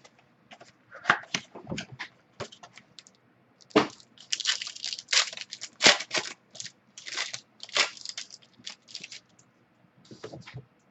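Foil wrapper of a football trading-card pack being torn open and crinkled by hand, an irregular run of crackling tears with short pauses between them.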